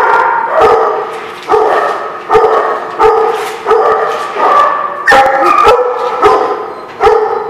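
Dogs barking in a hard-walled indoor kennel playroom: a loud, steady string of barks, roughly one every half second to a second, each one trailing off in the room's echo.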